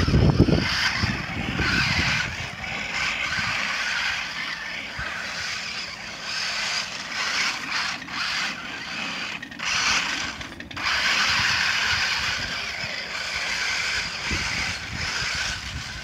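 Toy remote-control monster truck's electric motor and gears whirring as it drives over snow, cutting out and picking up again several times. A low thump right at the start.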